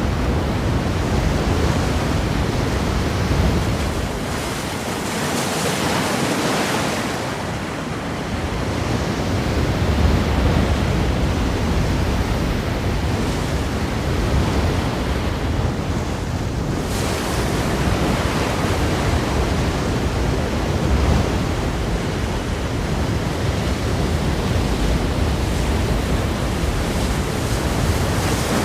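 Ocean waves breaking on rocks, a continuous rushing surf that swells and eases every few seconds, with a stronger surge about five to seven seconds in and again around ten seconds.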